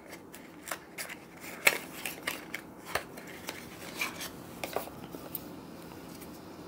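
A small cardboard box and its packaging being handled as a camera is lifted out: a scatter of light clicks, taps and rustles that die away over the last second or so.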